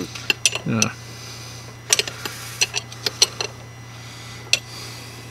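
Steel wrench clinking against the hydraulic hose fittings of a tractor's top link, a scatter of sharp metallic clicks with a quick cluster of them from about two to three and a half seconds in.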